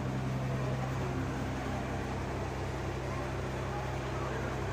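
Steady low mechanical hum, a constant machine drone with an even noise haze over it.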